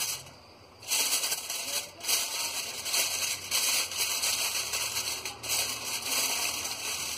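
Aluminium foil crinkling and crackling as hands spread a sheet over a container and press it down, a dense crackle starting about a second in.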